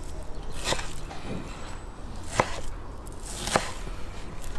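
Knife cutting raw meat into chunks on a wooden cutting board, the blade knocking sharply against the board a few times, roughly a second apart.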